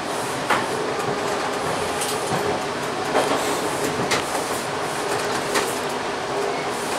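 TTC T-1 subway train running on open track, heard from inside the car: a steady rumble and hiss with a faint steady tone, broken by about five sharp clicks from the wheels on the rails.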